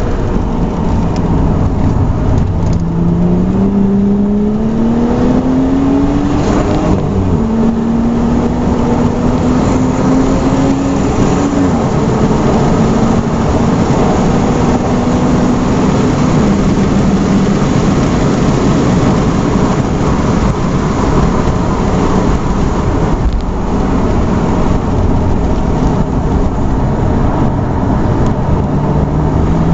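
FPV F6's turbocharged 4.0-litre straight-six heard from inside the cabin under hard acceleration on a race track. The engine note climbs and drops back at each upshift, twice in the first dozen seconds, then holds, eases off, and climbs again near the end, over loud wind and tyre noise.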